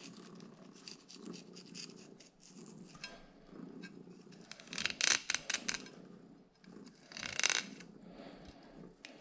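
Fillet knife cutting and scraping along a striped perch on a granite countertop. A quick run of crisp clicks comes about five seconds in, and a louder scrape a couple of seconds later.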